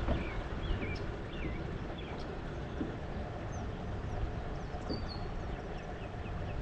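Wind rumbling on the microphone, with birds chirping in the background: a few wavering chirps in the first second or two, a couple of high whistled notes about halfway through, and a quick series of short chirps near the end.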